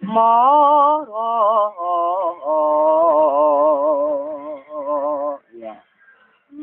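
A street singer's voice holding out the end of a line of a Javanese song in long notes with a wavering vibrato, stopping about five and a half seconds in.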